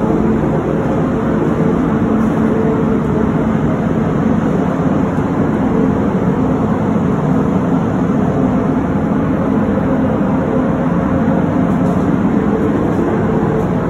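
Spray booth's air-handling fans running: a loud, steady rush of moving air with a low hum under it.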